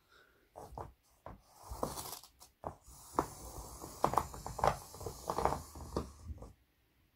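Two graphite pencils scratching and jabbing hard across a large sheet of paper laid over a board, in quick uneven strokes with sharp knocks; the scraping is thickest in the middle few seconds and stops shortly before the end.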